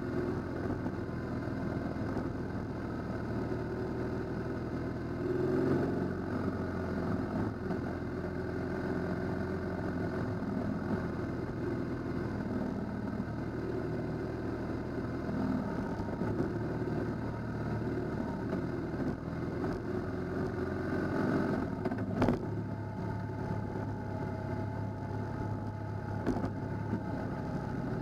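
Motorcycle engine running along a gravel road, heard from an onboard camera, its note shifting now and then as the speed changes. A single sharp click about three-quarters of the way through.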